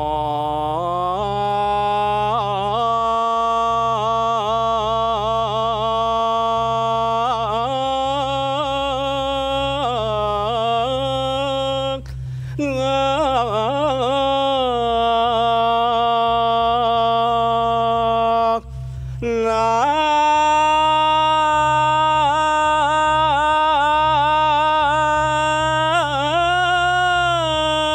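A solo voice chanting a slow Balinese chant in long held notes with wavering ornaments, broken by two short pauses for breath near the middle. A steady low hum runs beneath it.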